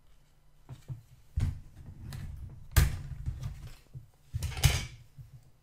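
Plastic model-kit sprues being handled and set down on a cutting mat: a few sharp plastic knocks and clatters, the loudest about three seconds in, then a rattling rustle near the end.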